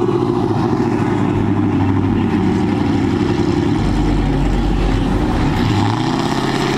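Dodge Charger's V8 engine running steadily as the car pulls away at low speed, with a deeper low rumble coming in about four seconds in.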